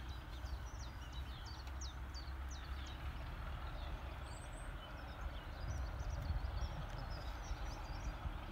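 Small birds chirping and singing, many short quick calls, over a steady low rumble and background hiss.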